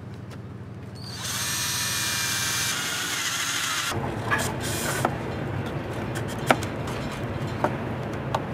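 Cordless drill running for about three seconds, starting about a second in, as it bores into the plywood body of a wooden chainsaw prop. After it stops come a few sharp clicks and knocks.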